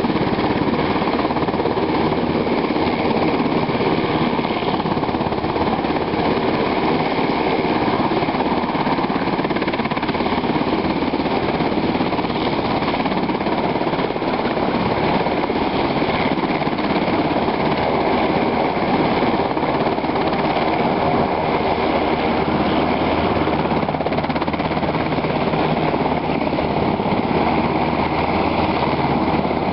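Army UH-60 Black Hawk helicopter running on the ground, its twin turboshaft engines and spinning rotors making a steady, rapid rotor beat under a high whine as it taxis before takeoff.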